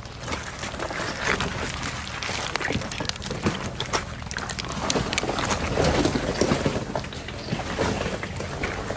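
Toyota 4Runner crawling slowly over rough trail: the engine runs low under a steady rumble, with scattered crunches and knocks from the tyres on rock and dirt.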